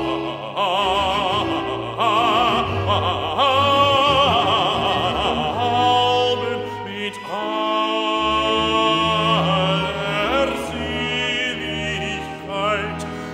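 Male bass soloist singing a recitative with wide vibrato, phrase after phrase, over sustained low notes from cello and continuo and a baroque string ensemble of violas.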